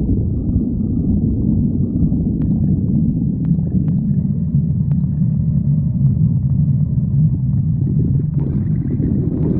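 A person's hungry stomach growling: a continuous low rumble, with a few faint ticks in the middle.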